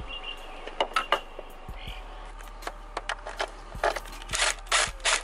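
A few sharp clicks about a second in, then a cordless impact driver with a universal-joint socket runs in several short bursts as it works a bolt on the engine.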